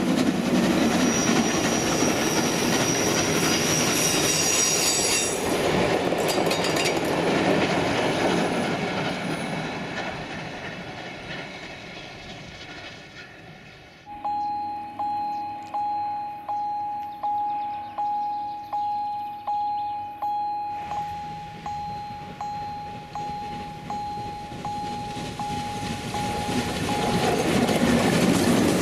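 Steam train of an E 3/3 tank locomotive and vintage carriages running past: a rumble of wheels with a high wheel squeal and clicks over the rail joints, fading as it goes away. About halfway through, a bell strikes about twice a second for several seconds, then grows fainter. Near the end the train rumbles up again, growing louder.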